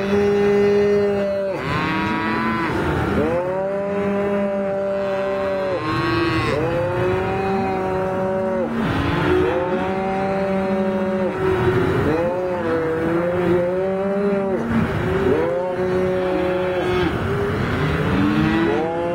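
Calves bawling over and over, many long overlapping calls, one after another with hardly a break.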